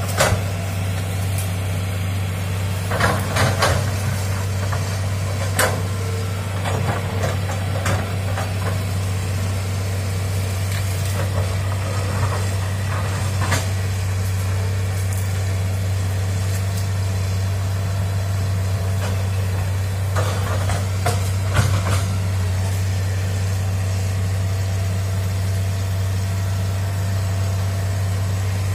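Hitachi crawler excavator's diesel engine running steadily as the machine tracks slowly over cleared ground. Scattered short, sharp clanks and cracks come a few seconds in, around the middle, and about two-thirds of the way through.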